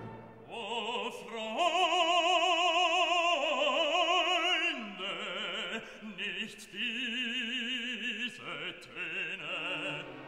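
Operatic singing: one voice holding long notes with a wide, even vibrato, in a classical style, as background music.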